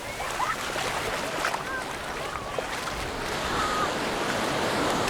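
Small sea waves washing steadily onto a sandy beach, with scattered distant voices of people on the beach over the surf.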